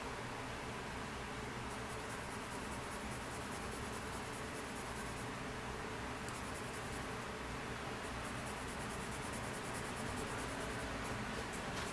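Coloured pencil shading on sketchbook paper, a dry scratchy scribbling. It comes in spells of quick, even back-and-forth strokes with short pauses between them.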